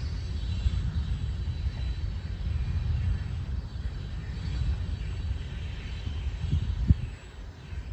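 Distant freight train rolling by as a low, uneven rumble, with wind buffeting the microphone. A single sharp bump comes near the end, and the rumble eases off just after it.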